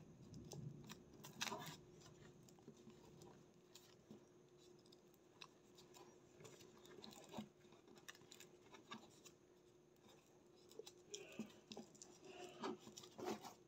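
Faint rustling and scraping of plastic three-strand rope handled by hand as a strand is tucked through the lay, with scattered small clicks that grow busier near the end. A faint steady hum sits underneath.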